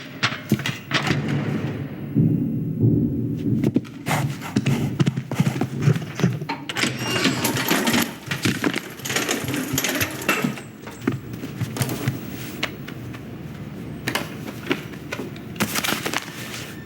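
Film sound-effects track: a dense, irregular run of knocks, thuds, clicks and rattles over a steady lower rumble, with a brief lull a couple of seconds in.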